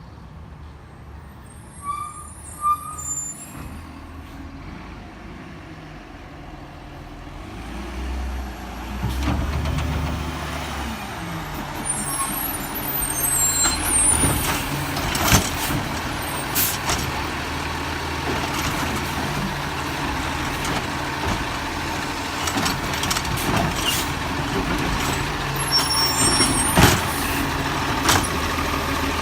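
Peterbilt 320 garbage truck with a Bridgeport Ranger rear-loader body: its diesel engine running, growing louder about eight seconds in and then staying steady, with several short sharp noises over it.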